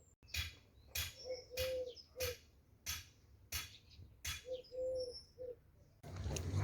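A dove cooing in repeated three-note phrases, the middle note longest. Sharp regular clicks or chirps sound over it about every two-thirds of a second. About six seconds in, a steady rushing noise sets in.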